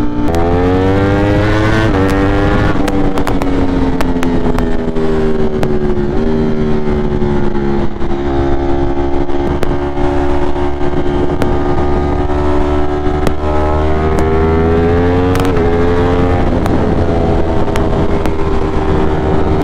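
Ducati Streetfighter V4 motorcycle's V4 engine pulling at highway speed, with constant wind rush on the helmet-side microphone. The revs climb for the first couple of seconds. The pitch then drops in steps with upshifts, from fourth into fifth, and holds fairly steady at cruise, with another brief rise and drop about three-quarters of the way through.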